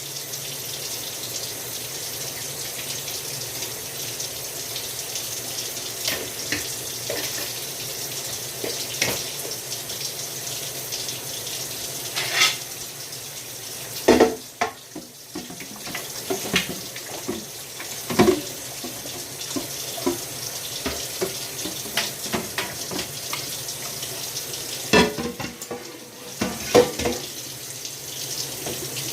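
Kitchen tap running into a sink while dishes are washed by hand, with frequent clinks and knocks of dishes and utensils. The running water drops away briefly twice.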